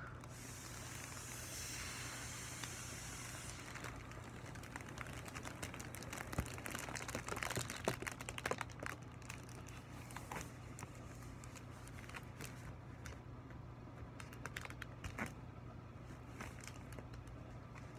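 A Mylar foil balloon being inflated, with a rush of air for the first three seconds or so. Then the thin foil crinkles and crackles as the filled balloon is handled and squeezed, most busily around the middle.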